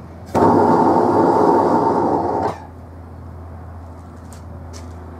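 Propane forge burner giving a loud rush of gas for about two seconds as the gas line is vented with the cylinder valve already shut, then cutting off suddenly. A steady low hum runs underneath.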